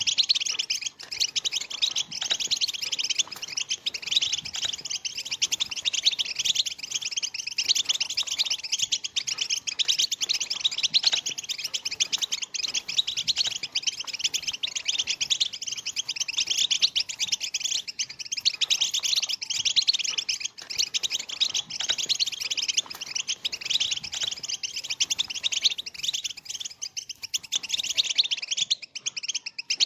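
A flock of juvenile European goldfinches twittering and babbling together in a dense, unbroken chatter, the young birds' subsong.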